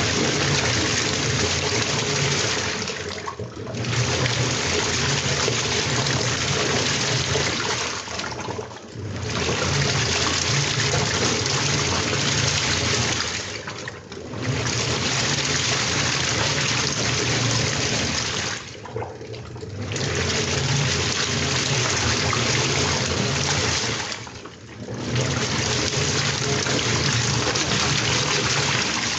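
Washing machine in its wash cycle: water sloshing as the drum turns, with a low motor hum. It comes in bursts of about four to five seconds broken by short pauses, typical of the drum stopping and reversing direction.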